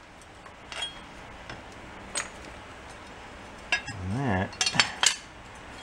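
Steel lawn mower blade clinking against the spindle, bolt and socket as it is worked off the mower deck, with several sharp metal clinks and a quick cluster of them near the end. A short hum of a voice comes about four seconds in.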